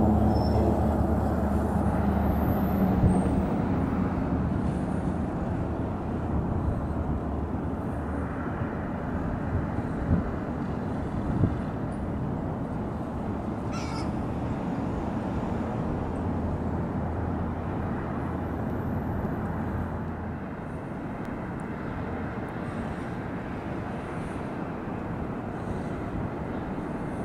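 Steady low rumble of trains and city traffic, loudest at the start and easing off over the first few seconds. A brief high bird call comes about halfway through.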